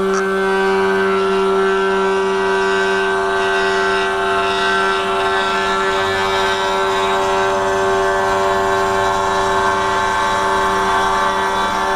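500 W spindle on a 3018 desktop CNC router cutting a deep slot in wood: a steady pitched whine with many overtones, overlaid by the hiss of the end mill chewing through the wood.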